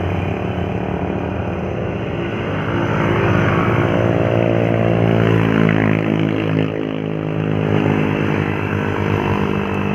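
Heavy truck's diesel engine labouring up a steep grade, its pitch climbing slowly through the middle, then falling back about seven seconds in.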